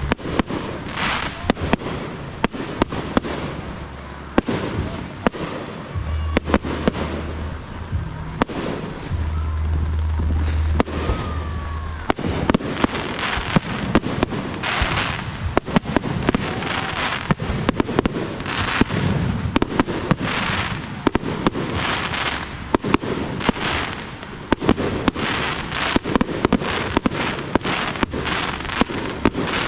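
Fireworks display: aerial shells bursting with sharp bangs and hissing, crackling glitter, coming thicker and faster in the second half.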